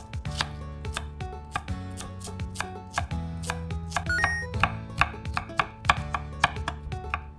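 Kitchen knife chopping vegetables (onion, carrot and scallion) on a cutting board, in quick repeated strikes.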